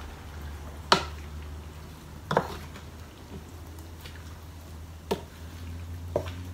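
Wooden spoon scooping a vegetable-tofu mixture out of a stainless steel pan, knocking sharply against the pan four times. A steady low hum from the loud oven fan runs underneath.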